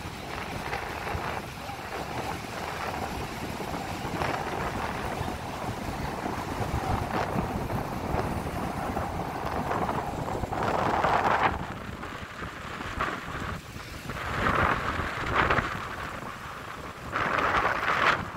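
Strong wind buffeting the microphone in a steady rush, with louder gusts several times in the second half.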